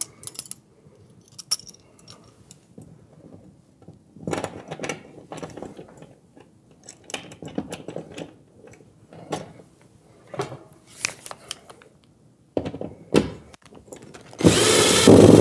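Scattered clicks and knocks of handling as a cord tensioner is held to the wall and screws are readied, then an Erbauer 18V cordless drill-driver runs near the end, driving a screw into the wall, briefly at first and then steadily.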